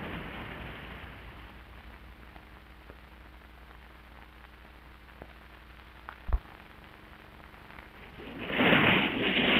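Ocean surf on an old film soundtrack fading down to a low hiss, with a few crackles and one sharp pop about six seconds in. Loud crashing surf comes in about a second before the end.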